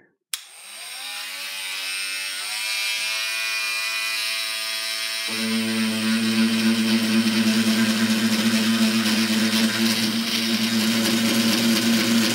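Oscillating multi-tool (renovator) switched on, its motor whine rising as it spins up, then about five seconds in turning to a louder, rougher buzz as the blade starts sawing into the knife's wooden handle.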